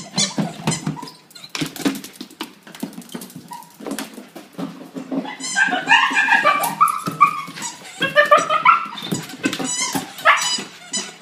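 Jack Russell terrier whining and yipping while it tussles with a toy duck, the high-pitched calls coming in a run from about halfway through. Its claws click and scrabble on a tile floor throughout.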